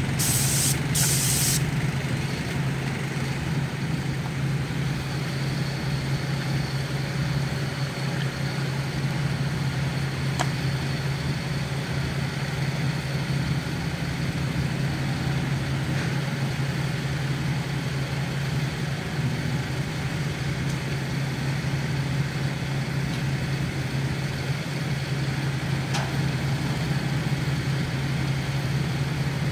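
Engine hum running steadily, with two short hissing bursts from an airless paint spray gun in the first second and a half.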